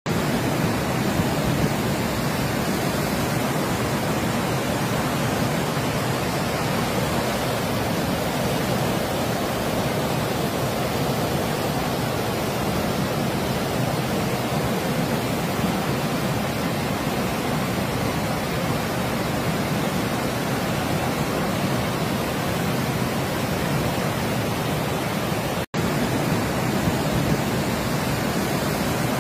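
Brown floodwater rushing through a flooded street and along a railway line, a steady, dense rushing noise. It breaks off for a split second near the end.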